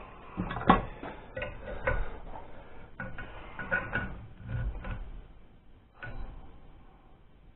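Wrenches clinking and knocking against the nuts on a stuck exhaust-manifold stud as the stud is worked loose, with a dozen or so scattered metallic knocks. They stop about six seconds in.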